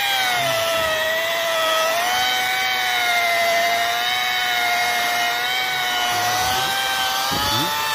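Yellow angle grinder fitted with a foam polishing pad running at its lowest speed while buffing car paint with polishing compound: a steady motor whine with many overtones that sags slightly in pitch about a second in as the pad is pressed on. The machine runs loud, which the owner puts down to worn carbon brushes needing replacement.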